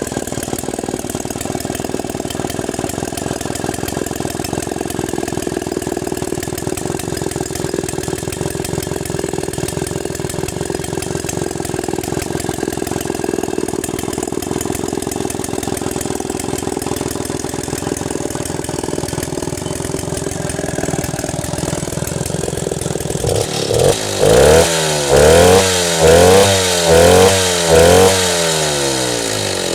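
Stihl 090G two-stroke chainsaw idling steadily, then revved in about five quick throttle blips near the end before dropping back to idle.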